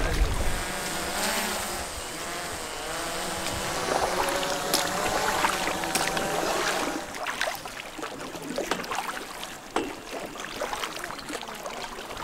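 A small rowing boat being rowed along a river, with water noise from the oars and a few sharp knocks. Faint pitched voices are heard in the first seven seconds.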